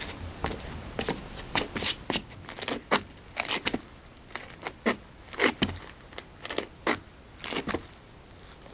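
Footsteps performed for foley: irregular, crisp heel-and-toe taps, some falling in quick pairs.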